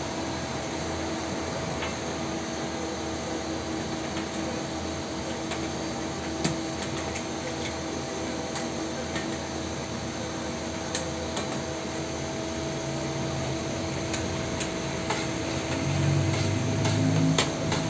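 Metal spatula clicking and scraping now and then on a flat steel griddle, over a steady hum and hiss. A low rumble comes up near the end.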